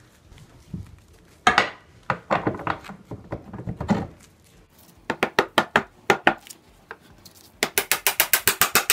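A cherry wood key block being driven into its slot in a table's leg-and-beam joint. First come irregular knocks and rubbing as it is pushed in by hand. From about five seconds in, a soft-faced mallet taps it home, about four taps a second at first, then a fast run of light taps near the end.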